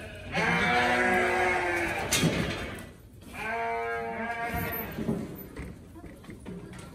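Sheep bleating in a handling pen: two long bleats, the second starting about three seconds after the first, with a single sharp knock near the end of the first.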